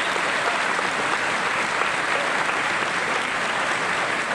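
Applause from a large seated audience: dense, steady clapping.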